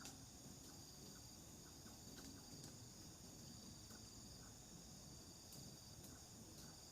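Faint, steady chorus of night insects, crickets among them, chirring in several high, unbroken tones.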